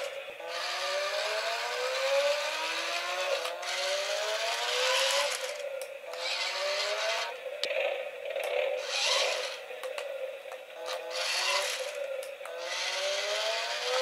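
Toy RC crawler's small electric drive motors whining, rising in pitch each time it is throttled up, again and again, with a rattling, scraping gear-and-wheel noise as it drives.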